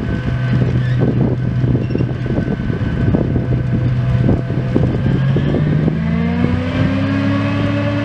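John Deere 8800i forage harvester running at work in grass silage: a steady, heavy diesel drone with irregular low buffeting. About six seconds in, a higher engine note rises in pitch and then holds steady.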